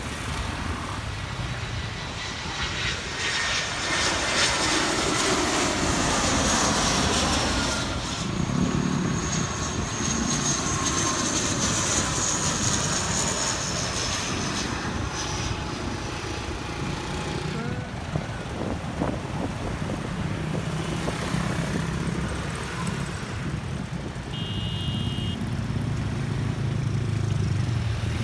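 Airliners on landing approach passing low overhead, first a twin-engine jet, then a twin-turboprop airliner: a steady rushing engine noise, with a high whine for several seconds in the middle.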